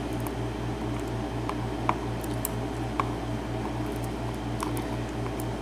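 A few light, sharp clicks of small pins being shaken and tapped out of a pin-tumbler lock cylinder, over a steady low hum that pulses about five times a second.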